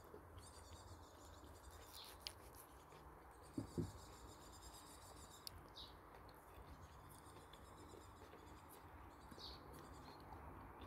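Near silence: faint outdoor background with a few short, faint high bird chirps now and then, and a couple of soft knocks about three and a half seconds in.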